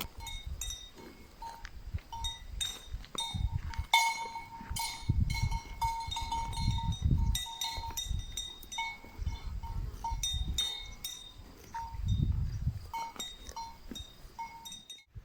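Small bell clinking irregularly with a short, ringing tone, over low rumbling gusts.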